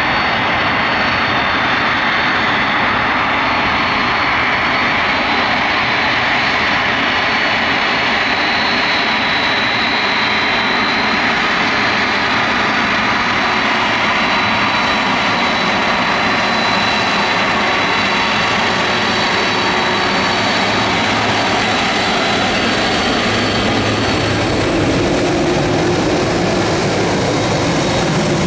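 Boeing 747-400's four General Electric CF6-80C2 turbofans running at taxi power as the jumbo jet rolls close by: a steady loud jet rumble with a high fan whistle. The engine note shifts lower near the end as the aircraft turns onto the runway.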